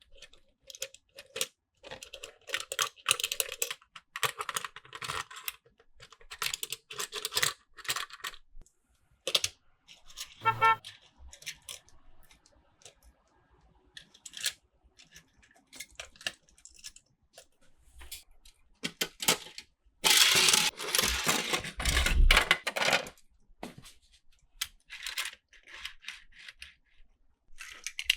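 Small plastic toy-train track pieces and die-cast toy cars clicking and clattering as they are handled and run on a toy course. A longer, louder rattle comes about twenty seconds in, ending in a low thud.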